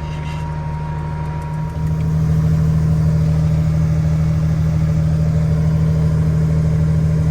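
Case IH 8940 tractor's diesel engine running steadily while pulling a grain cart, growing louder about two seconds in as it takes on more throttle.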